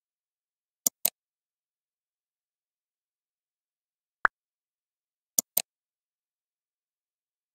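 OptiKey on-screen keyboard sound effects: two quick clicks about a second in, a single key-selection tick just after four seconds, then another two quick clicks about a second later, as keys and mouse clicks are triggered by eye gaze.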